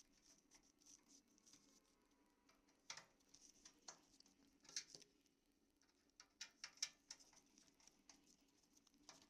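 Faint small clicks and scrapes of a screwdriver turning a screw out of a plastic cable box casing, with scattered sharper ticks, several close together about seven seconds in.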